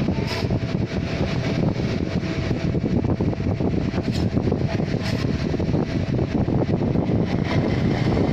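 Steady low mechanical rumble, like a small motor or fan running.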